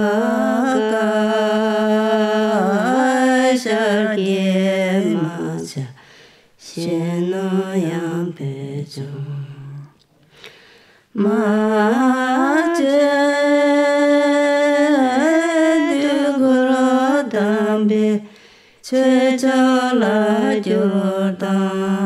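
A solo voice singing slow, long-held notes in a chant-like melody, in phrases of a few seconds with short breaks between them.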